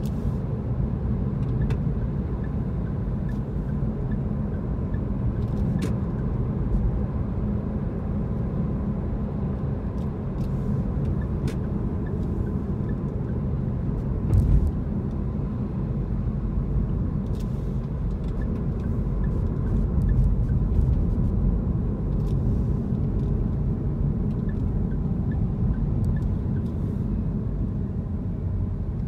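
Steady low rumble of a car's engine and tyres heard from inside the cabin while driving, with a brief thump about halfway through.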